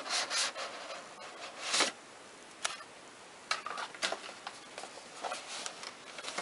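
Large cardboard advent calendar box being handled and turned over in the hands: irregular rustles, scrapes and light taps of card, with a denser rustle at the start.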